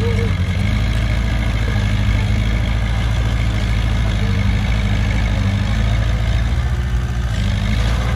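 Heavy earthmoving machine's diesel engine running steadily.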